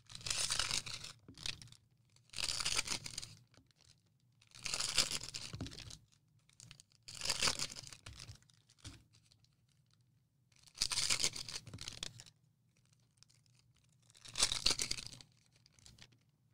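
Cellophane wrappers of Prizm cello card packs being torn open, six separate tears each lasting about a second, spaced two to three seconds apart.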